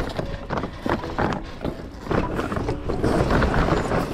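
Mainsail being hoisted by hand: sail cloth rustling and the luff slides clattering up an old mast track, under background music.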